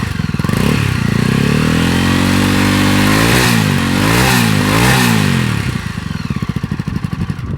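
Honda CB300 single-cylinder engine breathing through a 3-into-1 exhaust with the dB killer fitted. It is revved up from idle, held high, blipped up and down a few times, then drops back to idle.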